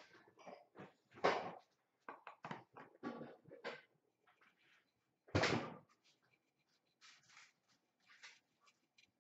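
Hands and a tissue rubbing at the rim of a porcelain bowl, making short, irregular scraping and rustling strokes. A louder knock about five seconds in.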